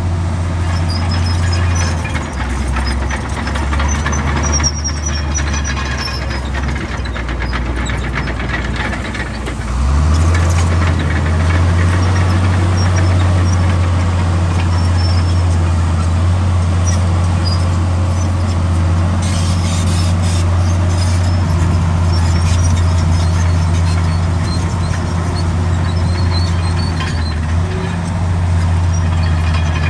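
Komatsu D65 bulldozer's diesel engine running under load, with faint squeaks from its steel tracks. The engine note drops about two seconds in, rises about ten seconds in and then holds steady.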